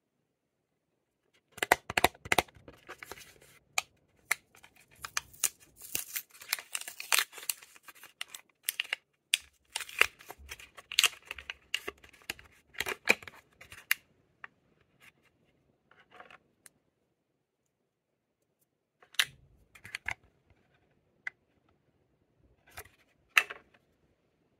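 Lip balm packaging being unwrapped and opened: dense crinkling, tearing and clicking for about the first half, then a few scattered clicks and rustles.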